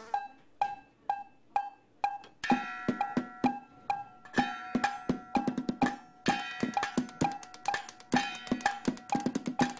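Percussive background music: a few evenly spaced knocks, about two a second, then from about two and a half seconds in a busier rhythm of knocks and taps with held tones under it.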